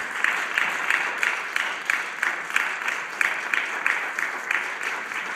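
Audience applauding, with one set of hands clapping close by in an even beat of about three claps a second over the general clapping.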